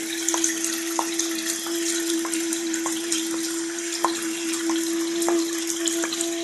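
Running water with a steady hiss, under a steady humming tone and light irregular clicks.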